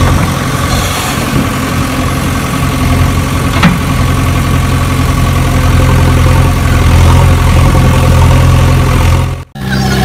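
Engine idling steadily with a low, even hum. It cuts out for an instant near the end, then comes back.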